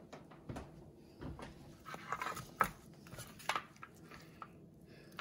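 Faint handling sounds of a gloved hand pulling apart tender smoked beef short ribs on a metal sheet pan: scattered light taps and rustles, the sharpest about two and a half seconds in.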